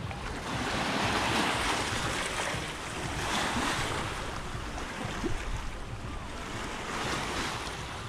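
Sea surf washing against the shore in repeated surges, each swelling and ebbing, with wind buffeting the microphone.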